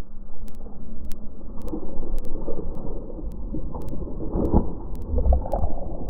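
Soupfin shark thrashing and splashing at the surface, with wind buffeting the microphone; the biggest splash comes about four and a half seconds in.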